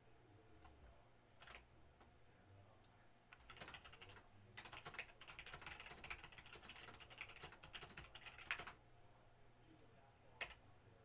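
Faint typing on a computer keyboard: a few scattered key clicks, then a fast run of typing for about five seconds, and a single sharper click near the end.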